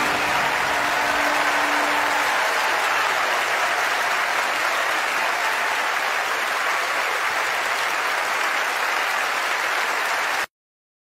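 A large crowd applauding at the end of a live band performance, steady throughout, with a held low note lingering for the first two seconds; the applause cuts off abruptly near the end.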